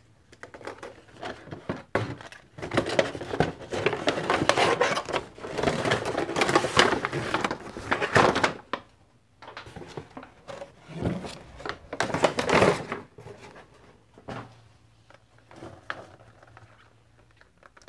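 Packaging being rummaged through and handled: a cardboard box and plastic blister packs rustling, crinkling and scraping, in several stretches of a few seconds each with short pauses between.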